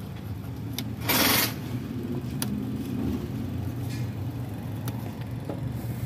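An idling engine's steady low hum, with a short, loud hiss about a second in and a few light clicks from handling parts.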